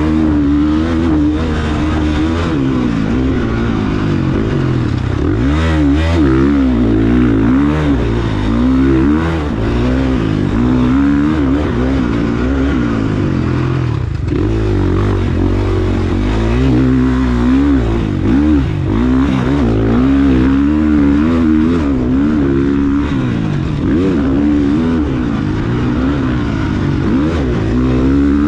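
Dirt bike engine being ridden hard, revving up and down continuously, its pitch rising and falling with the throttle and gear changes.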